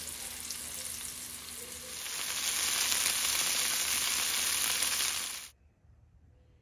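Flour-dredged chicken pieces sizzling in hot oil in a cast-iron skillet: a dense, steady frying hiss that grows louder about two seconds in and cuts off suddenly near the end.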